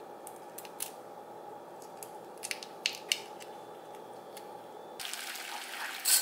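Raw shrimp being peeled by hand: a few small, crisp cracks of the shell over a steady low hum. About five seconds in, this gives way to the hiss of a pot of boiling water, with a sharp clatter near the end as a bundle of dry green tea noodles is dropped in.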